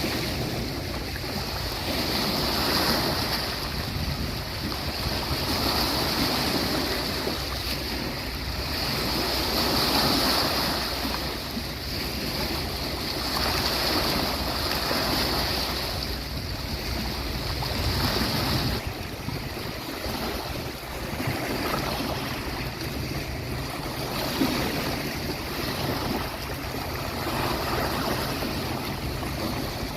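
Sea waves washing onto the beach, swelling and easing every few seconds. A steady high hiss runs beneath them until about two-thirds of the way through, then drops away.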